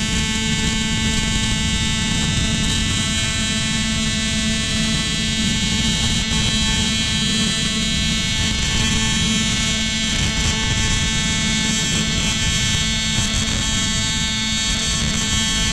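AC TIG welding arc on aluminium, a steady, loud electrical buzz that holds unchanged throughout and cuts off at the end as the arc is stopped.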